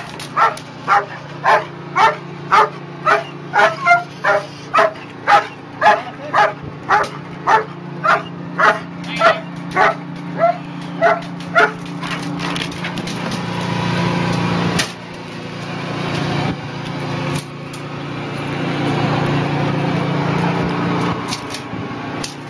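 German Shepherd barking steadily and rhythmically, about two barks a second, stopping about halfway through. A steady low engine hum runs underneath and carries on after the barking ends.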